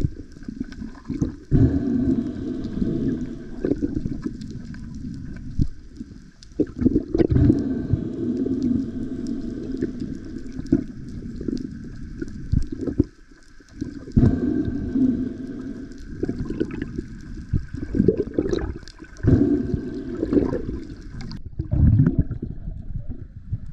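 Muffled rushing and gurgling water heard through an underwater camera housing on a freedive, with irregular knocks and bumps.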